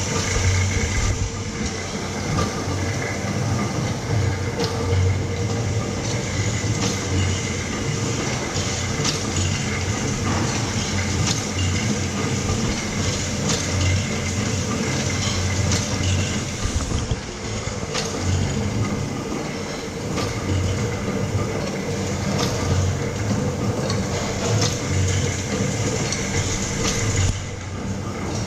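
Kluge EHD platen die cutter running: a steady motor and pump hum with repeated mechanical clacks from the press cycling.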